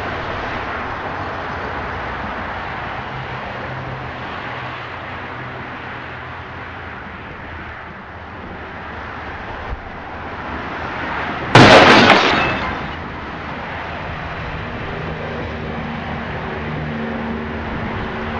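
Steady road traffic noise, broken about two-thirds of the way through by a single sudden loud crash of a car collision that dies away over about a second.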